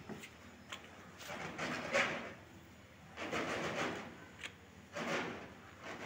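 Hands working a plastic wheel cover onto a car's steel wheel: repeated rubbing and scraping swells, each about a second long, with a few light clicks.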